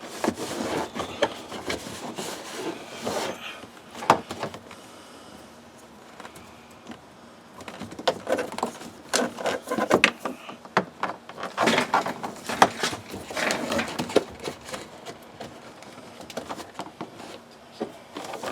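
Hands handling plastic door-panel parts and wiring connectors: irregular rubbing and rattling with sharp plastic clicks, quieter for a couple of seconds a third of the way in, then busier again.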